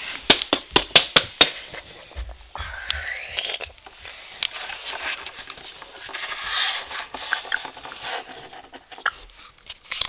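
A quick run of sharp taps, about five a second, for the first second and a half. Then softer scraping and rustling as small plastic Littlest Pet Shop figurines are moved and handled on a tabletop.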